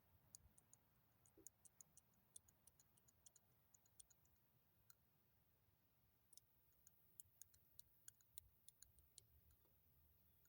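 Faint, irregular high-pitched ticks and scratches from small hand work on a plastic model car, coming in clusters with a short pause partway through.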